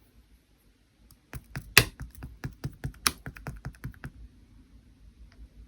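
A quick run of sharp clicks, about five a second, for close to three seconds, with two louder clicks among them.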